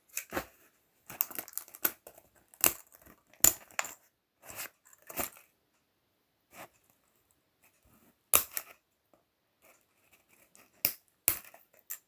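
Irregular sharp plastic clicks and snaps from a broken laptop-style keyboard being handled and pulled apart, with keycaps popping off. There are about a dozen separate clicks with quiet gaps between them.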